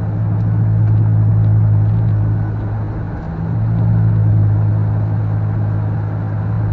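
A car driving at steady speed: the engine makes a low, steady drone over road noise, swelling louder twice.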